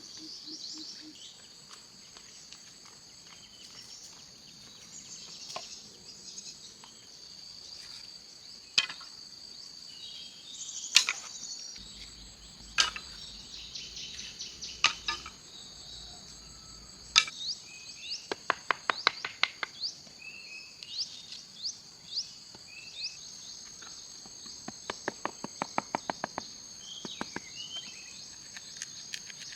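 Steady, high-pitched chorus of insects, with scattered sharp knocks and two quick runs of rapid tapping, one about two-thirds of the way in and one near the end.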